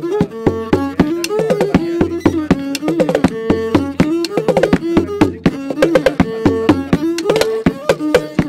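Instrumental music: a stepped melody of held notes over steady drum strikes.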